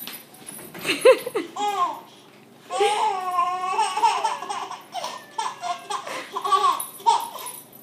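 Baby laughing in a run of short giggles and squeals, with one longer laugh about three seconds in.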